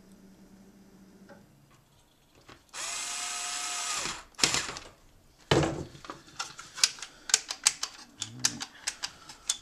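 A small electric motor whirs for about a second and a half, then sharp plastic clicks come several a second from the original PlayStation's reassembled open-button mechanism being worked.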